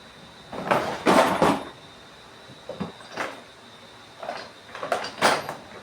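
Hand tools being picked up and knocked about on a work surface: three clusters of short knocks and scrapes, the loudest about a second in.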